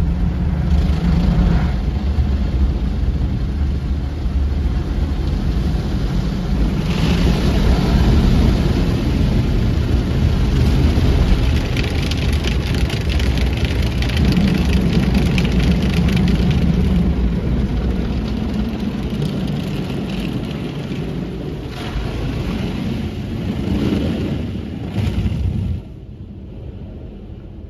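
Automatic car wash jets spraying water hard against a car's windshield and body, heard from inside the car as a loud, steady rushing spatter. The noise drops sharply near the end.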